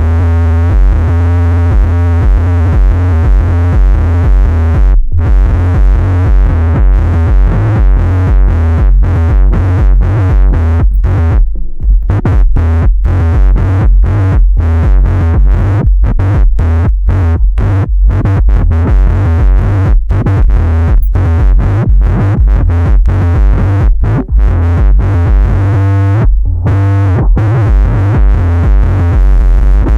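Harsh distorted electronic noise from a Gemini CDM-3600 DJ unit whose own output signal is fed back into its mic input. A loud pounding bass pulse runs under droning, wavering pitched feedback tones, and the sound is chopped by rapid stuttering cut-outs through most of the stretch.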